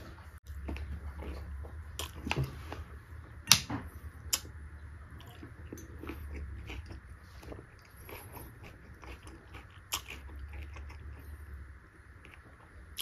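A person chewing and biting a mouthful of beef curry, with many short wet mouth clicks throughout. The sharpest click comes about three and a half seconds in.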